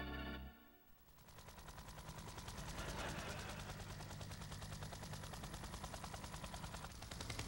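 Helicopter rotor chopping in a fast, even beat. It fades in about a second in and grows louder as it approaches, over a faint steady whine.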